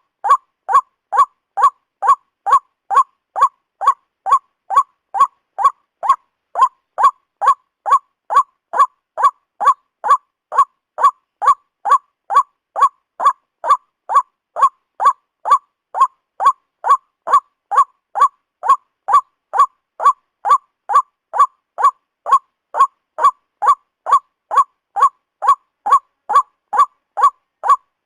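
White-breasted waterhen (ruak-ruak) calling: a short, loud, nasal note repeated steadily about twice a second, with clean silence between notes, as in a looped lure recording.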